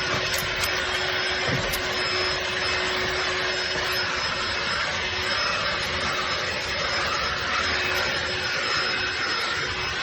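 DEWALT 20V DCV501HB cordless handheld vacuum running steadily: a rush of air with a constant low hum and a high whine from the motor. A few sharp ticks in the first couple of seconds.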